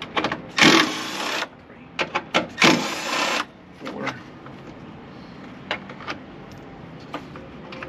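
Cordless power tool with an 8mm socket spinning bolts out: two runs of about a second each, the first right at the start and the second near the middle, followed by a few light clicks of parts being handled.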